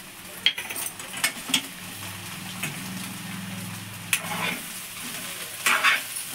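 Steel spoon stirring and scraping leafy greens and egg in a metal kadai, with sharp clicks of the spoon against the pan over a low sizzle of frying. A faint low hum sounds for a couple of seconds in the middle.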